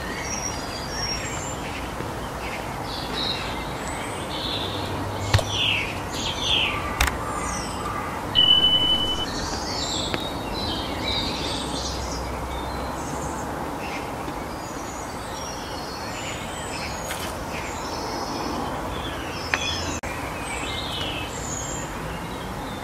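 Outdoor ambience: several birds chirping and calling at intervals over a steady background hiss, busiest between about four and nine seconds in, with one held high note near eight seconds and a few sharp clicks.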